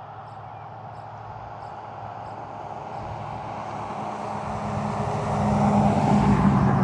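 A road vehicle approaching, its engine and road noise growing steadily louder over several seconds, with wind noise on the microphone.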